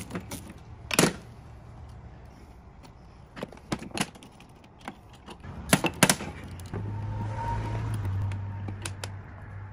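Scattered metal clicks and clinks of a small ratchet, nuts and cable terminals being worked on a winch control box's terminal studs. About two-thirds of the way in, a steady low hum starts.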